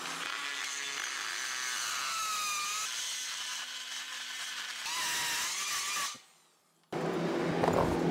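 Power grinder running and grinding into an aluminium weld to remove a crack, a high whine whose pitch shifts as the tool bites and eases. It cuts off about six seconds in, and a different steady buzzing sound starts about a second later.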